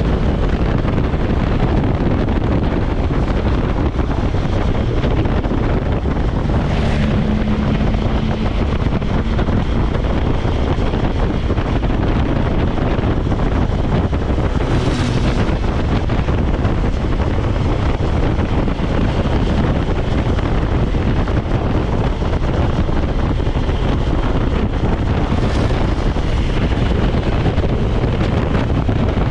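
Wind rushing over the microphone of a moving motorcycle, with a BMW S1000XR's inline-four engine running steadily at cruise underneath. The hiss swells briefly three times.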